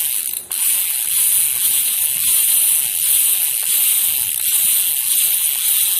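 LD CNC 3.0 six-pawl bicycle hub freewheeling. The pawls click so fast against the ratchet that the clicking runs together into a steady, loud buzz, which breaks off briefly about half a second in and then runs on. The hub is still new and not yet broken in.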